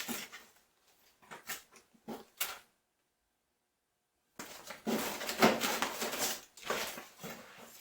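Papers and technical drawings rustling and shuffling as they are handled, with a few light knocks. The sound drops out completely for about a second and a half midway.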